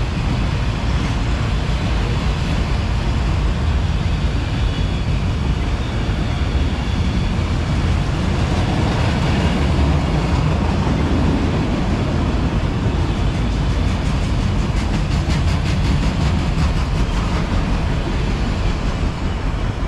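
Freight cars of a CSX manifest train rolling past, a steady rumble of wheels on rail, with a run of rapid clicking in the later part.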